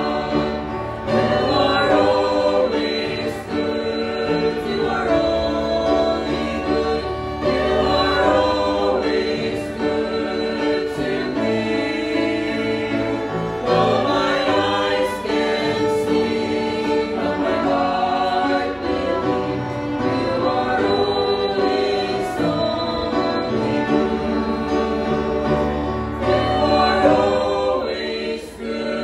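Mixed vocal group of two men and two women singing a Christian gospel song in harmony into microphones, with instrumental accompaniment.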